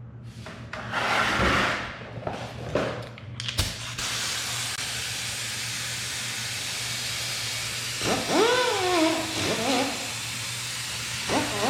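A few short hissing bursts, then a steady hiss from about four seconds in that carries on to the end, with a wavering pitched tone rising and falling twice near the end.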